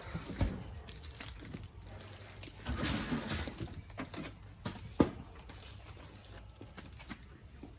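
Packaging being handled and opened: crinkling and tearing of cardboard and plastic, with a few sharp knocks.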